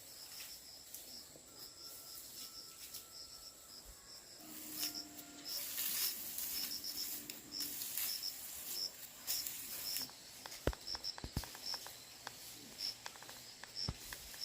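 An insect chirping: short high chirps at one pitch, repeating several times a second with uneven spacing, with a few soft clicks near the end.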